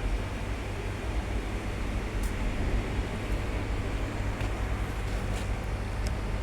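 Steady low mechanical hum, with a few faint light clicks about two seconds in and again near the end.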